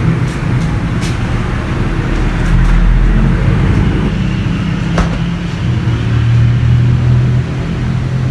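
Steady low rumble of a motor vehicle running, with a single sharp click about five seconds in.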